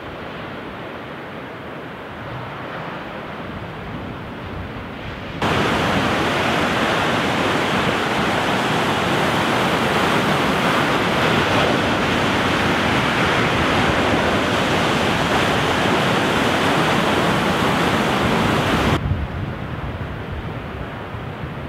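Heavy storm waves on Lake Superior crashing against rock cliffs: a steady rushing surf noise. About five seconds in it becomes suddenly much louder and brighter, and about fourteen seconds later it drops back to a duller, quieter rush.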